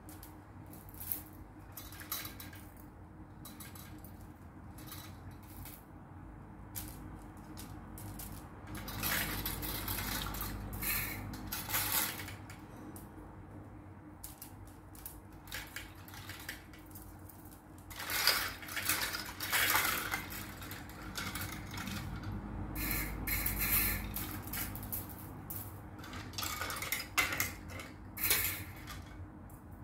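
Wire clothes hangers clinking and rattling against each other as a tangled bundle is pulled apart by hand, in scattered light clicks with busier bursts of clatter about a third of the way in and again about two-thirds of the way in.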